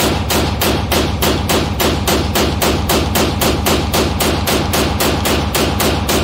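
Glock 22 Gen 5 .40 S&W pistol fired rapidly in one long string, about four shots a second, echoing in an indoor range; the firing stops near the end.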